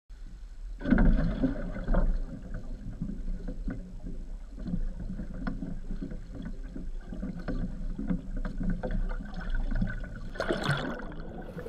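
Sea water splashing and sloshing around a metal water-sampling frame as it is lowered into the sea, with occasional light knocks. A steady low rumble of wind on the microphone runs underneath, and the loudest splashes come about one and two seconds in.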